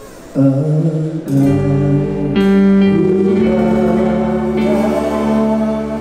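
A band's music starting suddenly: sustained chords come in about half a second in, and a deep bass joins about a second later, all held steady.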